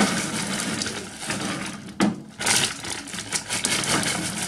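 Plastic bag of vegetables crinkling and rustling as it is handled, with a sharper rustle about two seconds in.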